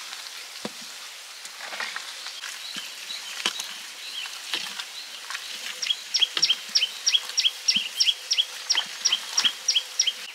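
Scattered light knocks and clicks, then from about six seconds in a fast, even run of short, high, downward-sliding chirps, about five a second, from a small animal.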